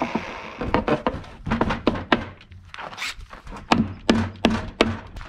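Irregular sharp clicks and knocks of metal hardware against a hard plastic cooler as a bracket and bolt are fitted through a freshly drilled hole, with a few louder knocks close together late on.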